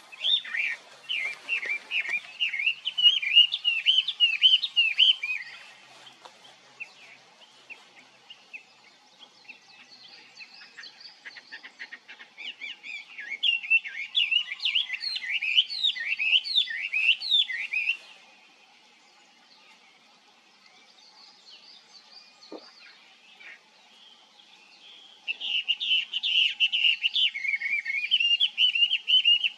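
Chinese hwamei singing: three loud bouts of rapid, varied whistled phrases, each about five seconds long, with quieter scattered notes in the gaps between them.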